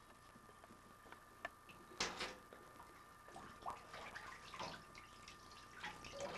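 Small splashes and drips of shallow bathwater as a baby is washed in a tub, with one sharper splash about two seconds in.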